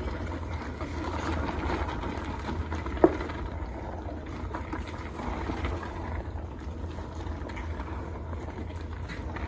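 Steady low hum and noise of a soup pot cooking on a stove, with one sharp knock about three seconds in.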